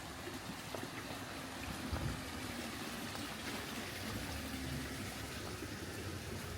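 Steady rain on a city street, a constant even hiss, with a low rumble of traffic underneath and a brief knock about two seconds in.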